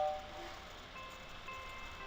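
Soft background music with faint held notes, the last of a two-tone chime dying away at the very start.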